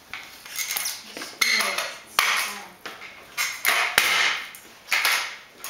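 Razor kick scooter ridden and tricked on a concrete floor: repeated bursts of wheels rolling and scraping with metal clattering, and two sharp knocks about two and four seconds in.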